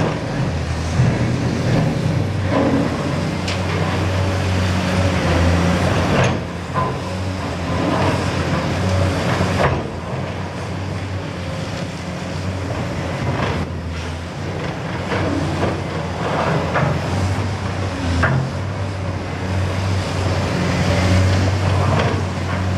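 Caterpillar 390D excavator's diesel engine running steadily under load as the bucket works at a building wall, with loud crashes and clatter of concrete and rubble breaking away and falling at irregular intervals.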